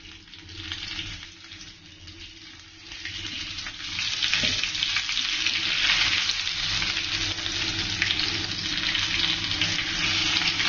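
Breaded potato cutlets shallow-frying in hot oil, a steady sizzle that grows louder about four seconds in, while they are turned over with a spatula.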